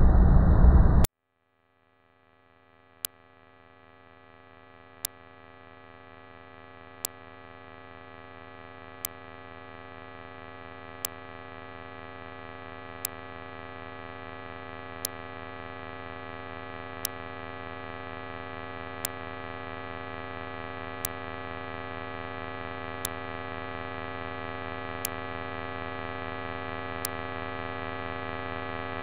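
A loud low rumble cuts off abruptly about a second in. After a moment of silence, a sustained electronic drone chord slowly swells, punctuated by a sharp click every two seconds, like a slow clock tick.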